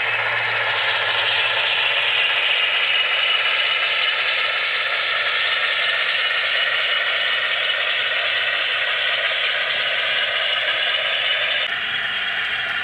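HO-scale Broadway Limited Centipede diesel locomotive models running with a long train of coal cars: a steady mechanical whirr and rattle of model wheels and drive on the track. It drops slightly in level near the end.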